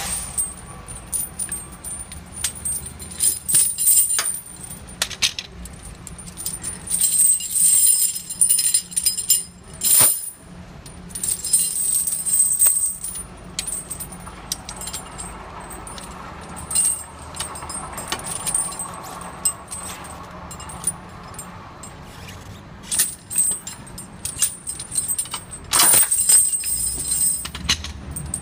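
Steel tire chains jangling and clinking, links knocking against each other and against the steel jaws of heavy tire-chain pliers as cross-chain hooks are worked off. The clinks come irregularly, with sharp metal clanks several times and a loud burst about 26 seconds in.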